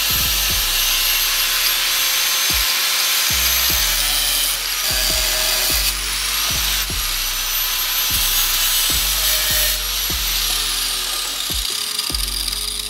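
Small high-speed power tool cutting the base of a fuel pump housing. It runs at a steady whine, eases off about four seconds in, spins up again around six seconds and winds down near ten seconds. A music beat plays underneath.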